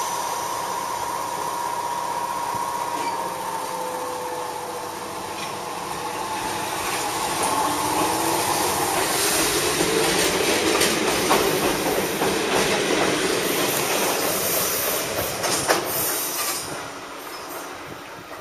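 Toyama Chiho Railway 16010-series electric express (former Seibu Red Arrow) pulling away from the platform: its motor whine rises as it accelerates, then the wheels clack over the rail joints as the cars pass close by, loudest in the middle and fading near the end.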